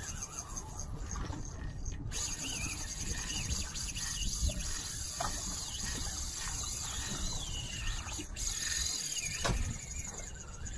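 Wind rumbling on the microphone over a fast, fine, high-pitched clicking: a fishing reel's drag paying out line to a big tarpon. A few short bird chirps come and go.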